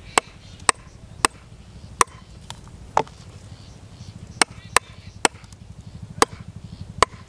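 A large kitchen knife chopping the claw tips off chicken feet on a wooden stump chopping block: about ten sharp chops at an uneven pace.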